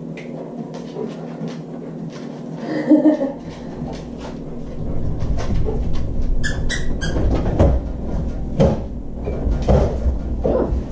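A dog working a refrigerator door open: a series of knocks and clicks, a rattle about three seconds in, and a run of short high-pitched clinks about six and a half seconds in.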